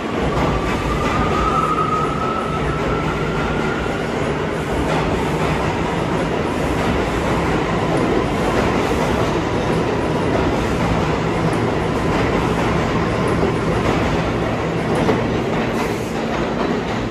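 New York City Subway C train pulling out of the station. Its motors give a rising whine over the first few seconds, under a steady rumble of wheels on rail with clacking as the cars roll past.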